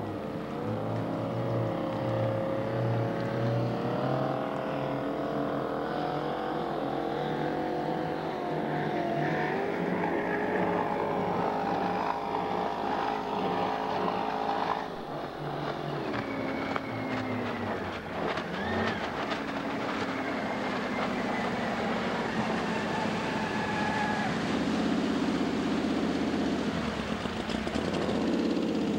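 Supercharged 468 cubic-inch big-block Chevy V8 in a flatbottom drag boat running on the water, its pitch shifting gently as the revs change, with a drop in level about halfway. Near the end it comes closer at low speed and grows louder and deeper.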